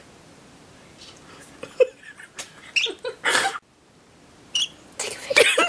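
Pet parakeet and cockatiel making short soft chirps and squeaks, with a few small clicks and two brief hissy bursts, the louder about three seconds in and another near the end.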